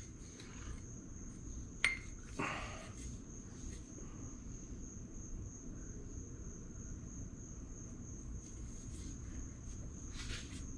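Faint, steady, high-pitched insect trill, like crickets. A sharp click comes about two seconds in, followed by a short scrape.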